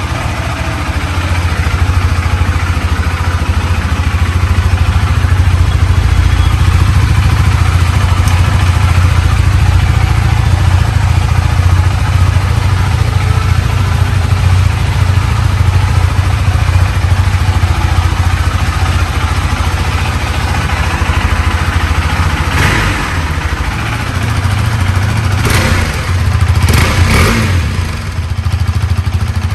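KTM RC390's single-cylinder engine running steadily through its stock exhaust, with a few short, sharper bursts near the end.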